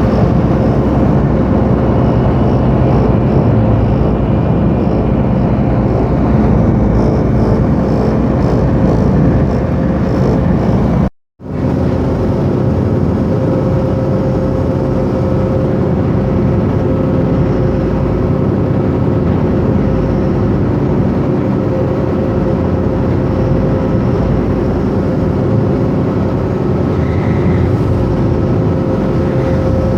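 A ship's engine running steadily while the vessel is underway: a loud, even drone with a constant hum. It cuts out for a split second about eleven seconds in, then carries on unchanged.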